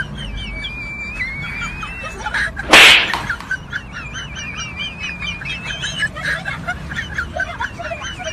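Bird-like chirping whistles run almost throughout. About three seconds in, a loud, short whooshing hit cuts across them, the kind of comic slap effect laid over a skit.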